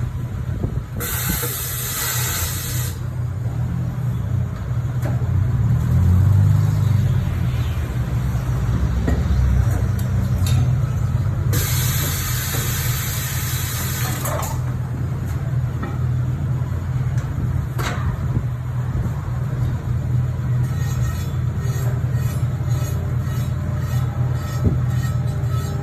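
Tyre-change work with air tools: a steady low hum throughout, broken twice by loud bursts of pneumatic-tool noise, each two to three seconds long, about a second in and again about eleven seconds in, with a run of quick clicks near the end.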